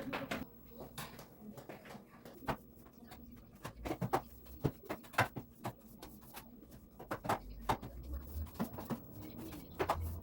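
Dishes and utensils clinking and knocking irregularly during washing-up.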